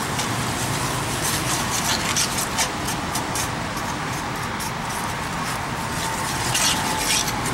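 Metal spoon stirring melted butter and brown sugar in a cast iron skillet, with a few light scrapes against the pan over a steady hiss.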